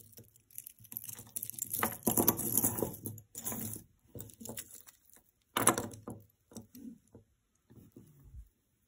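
Hands handling costume jewelry and its packaging up close: irregular rustling with small metallic clinks, loudest about two seconds in and again around six seconds.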